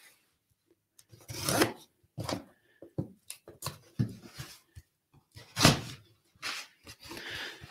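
A cardboard shipping box being opened by hand: a series of short, irregular tearing and scraping noises. The loudest come about a second and a half in and again near six seconds.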